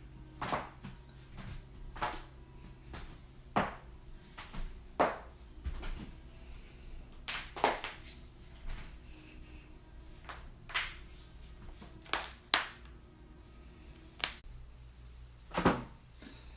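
Human joints cracking: a string of sharp pops and cracks, about fifteen of them at irregular intervals roughly a second apart, some louder than others, over a faint steady hum.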